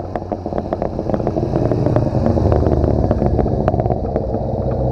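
1980 Saab 900 8-valve Turbo's turbocharged four-cylinder engine as the car drives past, growing louder to a peak about halfway through and then fading as it goes by.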